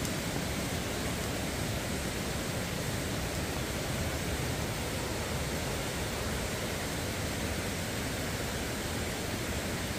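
Steady rushing of a fast mountain stream running white over rocks.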